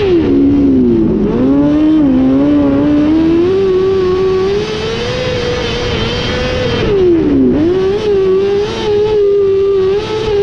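Winged sprint car's engine at racing speed, heard from on board. The engine note drops as the driver lifts for a corner at the start, climbs back to a steady high rev, then dips and recovers again about seven seconds in.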